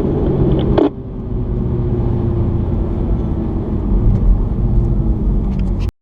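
Mini's engine heard from inside the cabin, running at steady, slowly falling revs with road rumble. A sharp click about a second in, and the sound cuts off abruptly just before the end.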